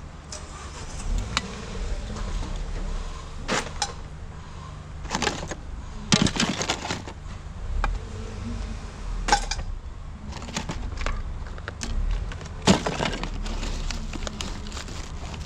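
Hands rummaging through discarded household items: irregular clatter, knocks and rustling as objects are picked up, shifted and dropped, with a few sharper knocks among them.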